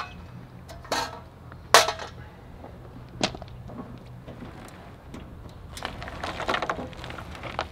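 Four sharp metallic knocks spread over the first few seconds, then a couple of seconds of scraping and rattling near the end, from gloved hands handling the cover of a steel electric meter socket and working the disconnected service wires inside it.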